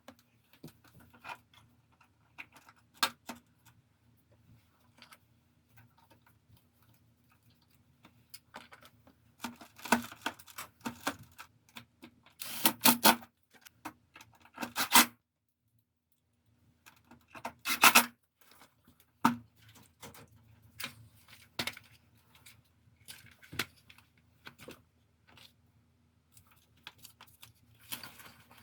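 Plastic covers and parts of a Samsung wall-mounted air conditioner being handled, with irregular clicks, knocks and short rattling clatters over a faint steady hum.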